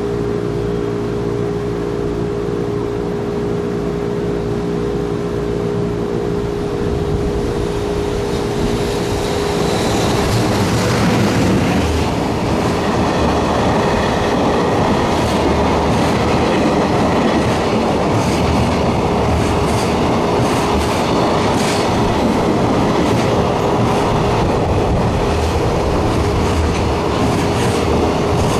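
Freight train hauled by an EH500 electric locomotive running on the rails: a steady hum with a held tone, then a louder rolling noise from about ten seconds in, with the wheels clicking over rail joints.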